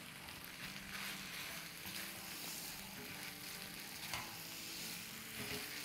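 Meat-and-vegetable stir-fry sizzling faintly in a stone-coated pan as it is stirred with a silicone spatula, with a few soft scrapes and clatters of the food being turned.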